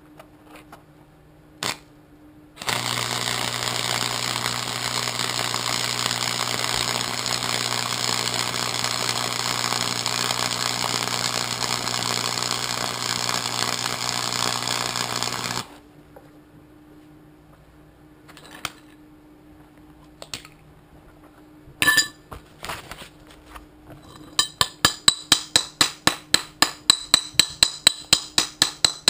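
Harbor Freight flux-core wire feed welder striking an arc and running a bead for about thirteen seconds: a steady crackling sizzle over a low electrical hum that starts and stops abruptly. Near the end, quick sharp metal strokes about three a second, typical of cleaning slag off a flux-core weld.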